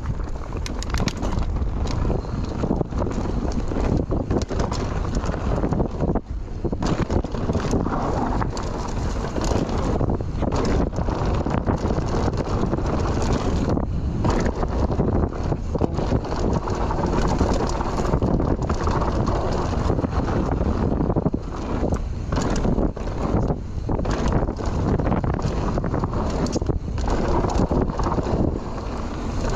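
Wind buffeting a GoPro's microphone during a fast run down a dry dirt trail, with a constant rush of noise. Frequent knocks and rattles from the bike over roots and bumps run through it.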